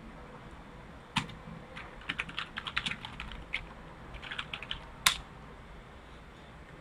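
Typing on a computer keyboard: a run of quick keystrokes, then one harder key press about five seconds in that enters the search.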